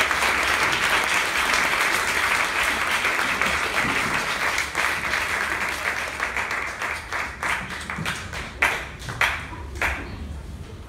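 Theatre audience applauding, a dense even clapping that thins over the last few seconds into scattered single claps and dies away.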